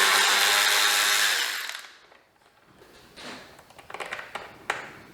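Handheld power tool motor running steadily with a high hiss, then winding down and stopping about two seconds in. A few faint clicks of handling follow.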